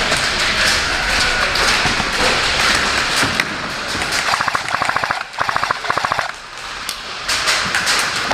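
Airsoft electric guns firing full-auto bursts, a rapid even clatter of roughly 15 to 20 shots a second: two bursts of about a second each from about halfway in, then shorter bursts near the end. Before them, a few seconds of loud, steady rushing noise.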